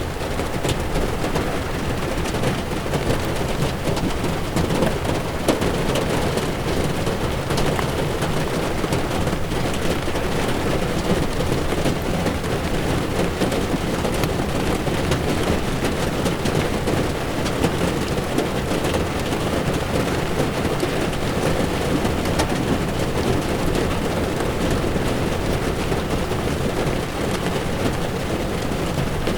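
Heavy rain falling on a moving car's windshield, with the hiss and rumble of tyres on the wet road. It is a steady sound with scattered sharp drop ticks.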